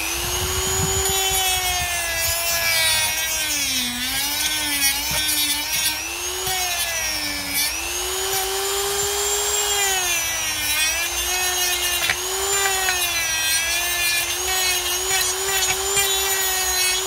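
Dremel rotary tool with a sanding drum running at high speed, a steady whine that sags in pitch several times as the drum is pressed onto the work, buffing the cut-off steel screw ends flush on a Milwaukee M18 battery casing.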